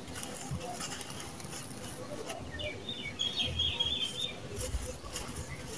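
Dry sand-cement mix being squeezed and crumbled by hand, with grains and small stones falling back onto a loose pile in a run of faint gritty crackles. A bird chirps a quick run of notes around the middle.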